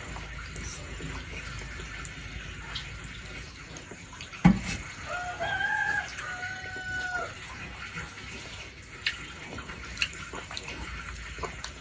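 A sharp knock about four seconds in, then a rooster crows once, in several held segments over about two seconds. Small clicks are scattered through the rest.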